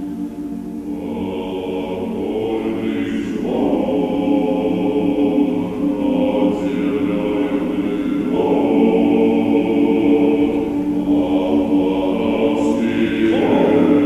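Orthodox men's choir singing unaccompanied in slow, sustained chords. The harmony moves to a new chord about every four to five seconds, and the singing grows louder across the passage.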